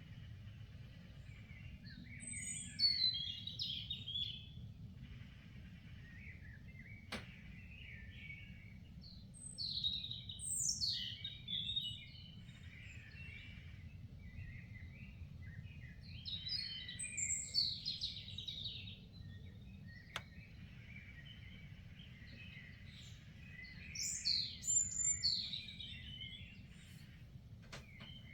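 Songbirds singing in bursts of high, chattering phrases with downward-sliding notes, roughly every seven seconds, over a steady low rumble.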